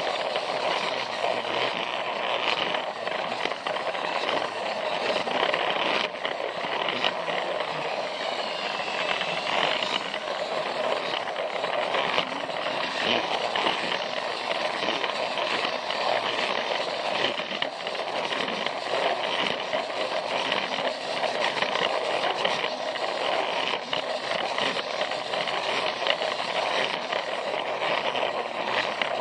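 Plarail toy train running along plastic track: a steady whir of its small battery motor and gears with the rattle and scrape of plastic wheels on the rails.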